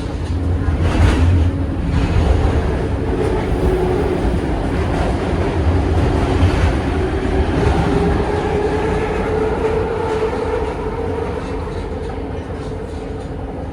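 Bombardier Innovia ART 200 train running at speed, heard from inside the car: a loud, steady rumble of wheels on rail with a drawn-out motor tone that holds its pitch, and a brief louder surge about a second in.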